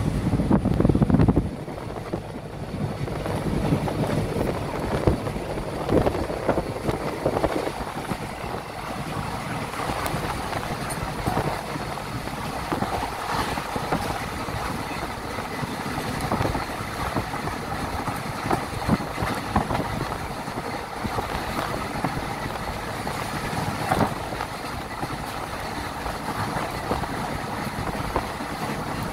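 Moving passenger train heard from inside the coach: the steady rumble of wheels on the track and rushing air at the window, louder for the first second or so.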